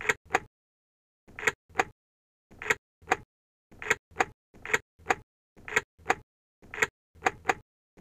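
Car key being put into the ignition slot over and over: each go is a short slide ending in a sharp click, and the clicks mostly come in pairs about a third of a second apart.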